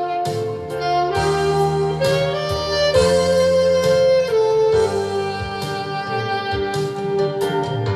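Saxophone playing a melody in long held notes, over a bass line and drums with cymbal strikes.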